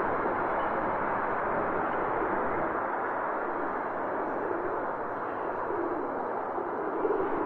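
City street ambience: a steady wash of traffic noise, with no single vehicle standing out.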